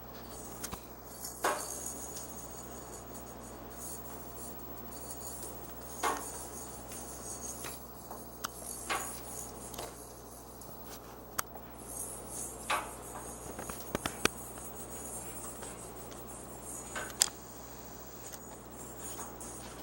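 Scattered short clicks and taps from a Timneh African grey parrot on top of its cage, a few seconds apart, over a steady hiss; the sharpest click comes near the end.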